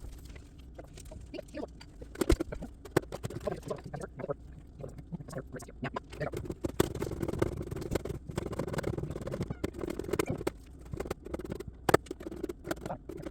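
Carrots being sliced on a mandoline: a run of irregular scraping strokes, with a couple of sharper knocks among them.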